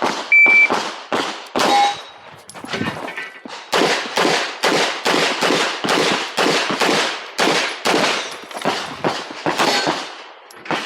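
A short electronic start beep from the shot timer, then rapid 9mm pistol fire from a KMR Spectra with Geco 124 gr ammunition: quick strings of shots, often in pairs, for about ten seconds as the shooter runs an IPSC stage.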